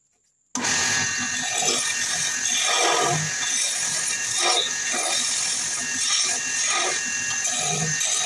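Wood lathe spinning a wooden handle blank while a hand-held flat scraper cuts it, a steady scraping hiss over the running lathe that starts suddenly about half a second in and swells roughly once a second as the tool is worked along the wood.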